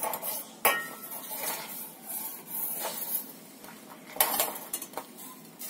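Steel spoon stirring thickening beetroot juice in a stainless steel bowl, scraping against the metal, with a sharp clink that rings briefly about half a second in and a few more knocks around four seconds in.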